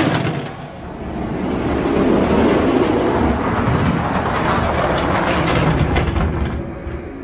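Die-cast Hot Wheels monster trucks rolling fast down an orange plastic track, their plastic wheels making a continuous clattering rumble that fades near the end.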